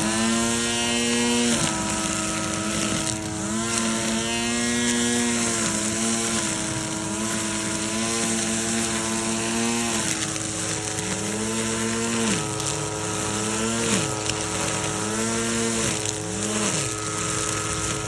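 Ryobi 25.4cc two-stroke brush cutter engine running at high revs. The throttle is let off and opened again several times, so the pitch dips and climbs back, in quicker succession in the last third.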